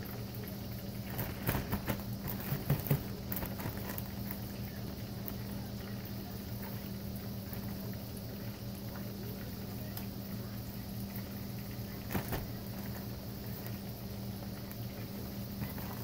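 A steady low hum under a faint hiss, with a few sharp clicks and light rustling about two seconds in and again near twelve seconds: utensils and a plastic bag of breading being handled.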